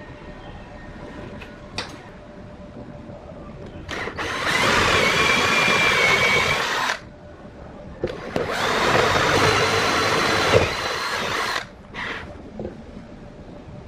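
Power tool running in two bursts of about two and a half and three seconds, a steady motor whine over dense noise, with a short pause between them.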